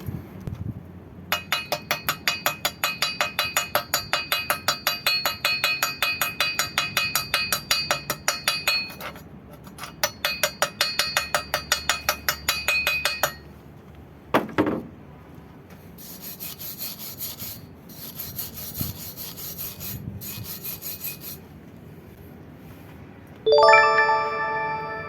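Rapid back-and-forth scraping strokes on iron, about five a second, the metal ringing with each stroke, in two long runs. A shorter, hissier bout of scraping follows. Near the end comes a single loud metallic ring that slowly fades.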